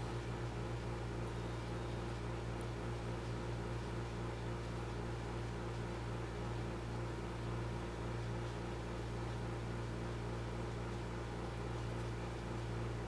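A steady low machine hum under a constant hiss, unchanging throughout.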